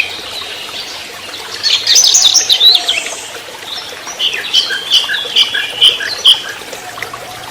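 Orange-headed thrush (anis merah) singing: two bursts of quick, high chattering notes, one about two seconds in and a longer one from about four to six seconds in.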